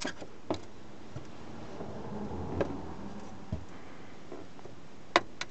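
Scattered light clicks and taps as plastic clip-screws are turned and snapped home with a screwdriver on a steel fuel-pump access cover, with the sharpest click near the end.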